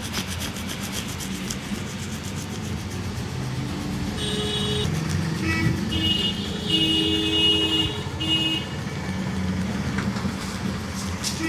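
Roadside traffic running steadily, with vehicle horns sounding in several held blasts in the middle.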